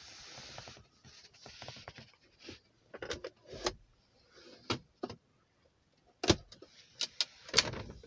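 Scattered clicks and knocks of a car's centre-console armrest lid being handled, unlatched and lifted open, with the loudest knocks near the end as the lid comes up.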